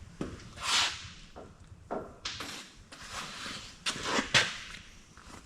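A few short scraping and rubbing noises with light clicks, from hand work on a bare engine block.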